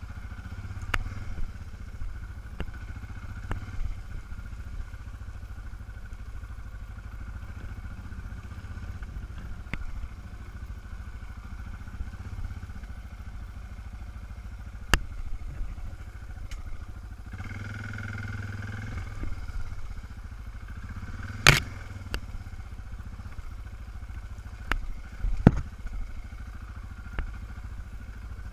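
Suzuki DR650 single-cylinder engine running steadily as the bike rides a rough dirt trail, with scattered sharp knocks and clatter from the bike jolting over the ground. The engine note swells briefly a little past halfway, and the loudest knock comes about three-quarters through.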